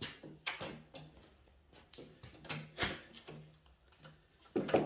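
Blocks of wood knocking and clunking as they are stacked and set in place: a run of irregular sharp knocks, the loudest near the end.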